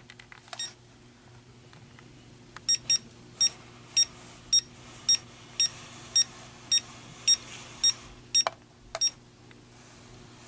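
Handheld electronic stud finder beeping as it is scanned across a wall while searching for a stud: a run of short, high beeps at about two a second, followed by two soft clicks.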